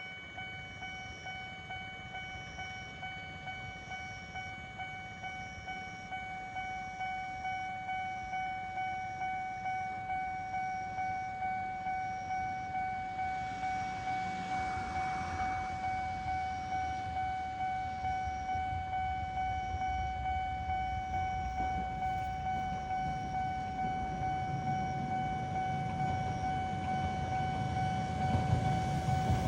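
Japanese railway crossing warning bell ringing in an even repeating beat. A train's low rumble builds near the end as it approaches the crossing.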